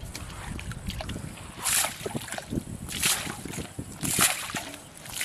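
Water scooped with a metal bowl and flung out over a shallow muddy canal, splashing three times about a second and a quarter apart, with small rustles and clicks in between.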